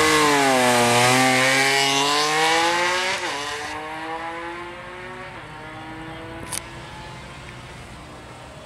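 BMW K1600 inline-six motorcycle launching hard and accelerating away down a drag strip. The engine note climbs through each gear, with quick drops at the upshifts about three and five seconds in, and fades steadily into the distance. A short sharp click sounds about six and a half seconds in.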